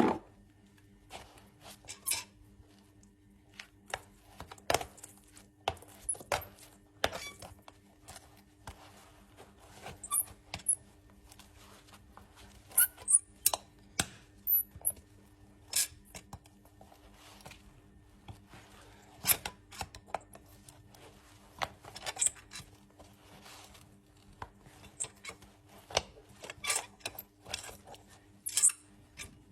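Hand tools trimming and scraping a horse's hoof: irregular sharp clicks, snips and short scrapes, some in quick clusters, over a faint steady hum.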